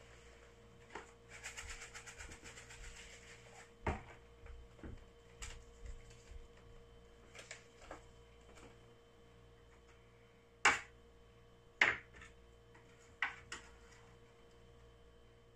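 Large taro leaves rustling and crinkling as they are handled and folded, followed by a few sharp knocks of things set down on a counter, the loudest two about eleven and twelve seconds in. A faint steady hum runs underneath.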